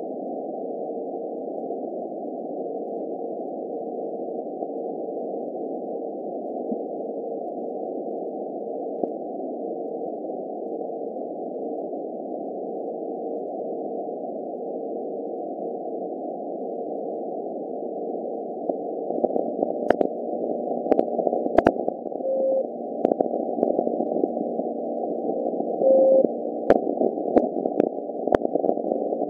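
Audio from a VLF loop antenna via a radio receiver: steady band-limited hiss with a faint keyed tone switching on and off. Past the middle the hiss grows louder, with scattered sharp clicks and short beeps about every three and a half seconds, the pulses of the Russian RSDN-20 (Alpha) navigation transmitters.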